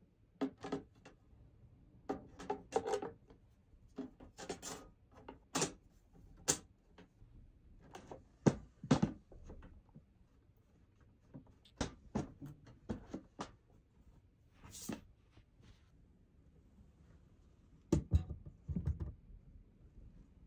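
Metal panels of a small-form-factor PC case being handled and fitted: an irregular series of clicks, knocks and short scrapes as the outer shell slides on and seats, with a few heavier knocks.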